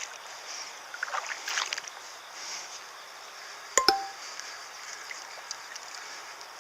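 Steady rush of flowing river water, with a few light clicks and knocks about a second in and one sharp clink with a brief ring near four seconds.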